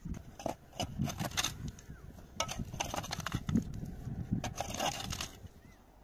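Irregular knocks and clunks as cargo is handled in the bed of a pickup truck, with a louder scrape or rustle near the end.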